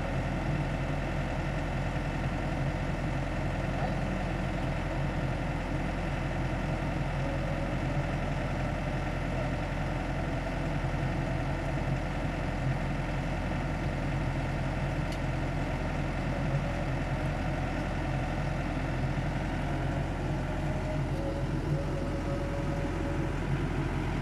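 Yanmar rice combine harvester's diesel engine idling steadily.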